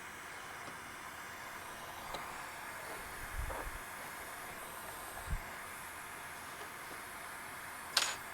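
Hot air rework station blowing a steady hiss of hot air at high airflow through a large nozzle onto a PS4 motherboard's Southbridge chip, with a few faint taps and a sharper click near the end.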